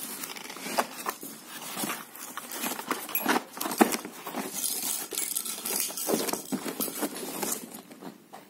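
A cardboard box being opened and handled: flaps rustling and scraping, with irregular small clicks and knocks as a plastic toy xylophone is pulled out of its packaging.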